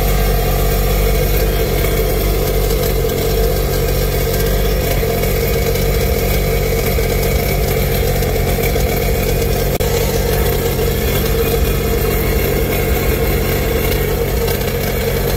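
Sea-Doo Challenger 180's 215-horsepower Rotax engine idling steadily out of the water, being flushed with a garden hose for winterizing, its cooling water splattering out of the stern onto the pavement.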